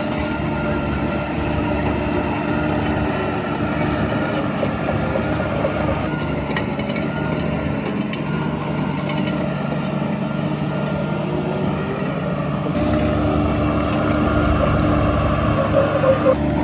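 Heavy diesel engine of earthmoving machinery running steadily, getting louder about thirteen seconds in, with a few brief louder peaks near the end.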